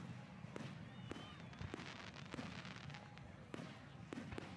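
Aerial fireworks shells bursting in a display, with several sharp bangs at irregular intervals about half a second to a second apart. Spectators' voices murmur underneath.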